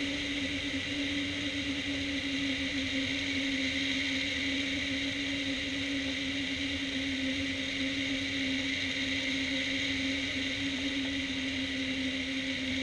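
Steady rush of wind over a hang glider's wing-mounted camera in flight, with a constant humming tone underneath.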